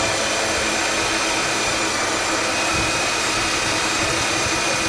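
Corded electric hand drill running at a steady speed with a steady motor whine as it bores into a metal plate. The bit is blunt and needs sharpening.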